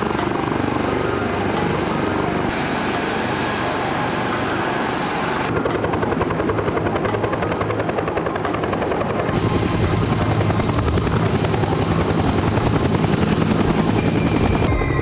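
Helicopter rotor and turbine noise: first a Coast Guard MH-65 Dolphin running on the ground with its rotor turning. Then, from about five seconds in, a Bell UH-1 Huey's two-bladed main rotor beats rhythmically as it descends and hovers just above the ground, growing louder and deeper about nine seconds in.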